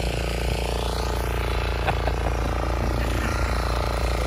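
Petrol walk-behind rotary tiller (motor hoe) engine running steadily under load as it churns the garden soil.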